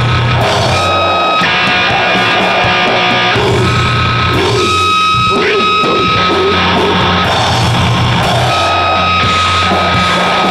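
Loud recorded sludge/noise rock: distorted electric guitar and drum kit in a dense wall of sound, with high held tones that come and go.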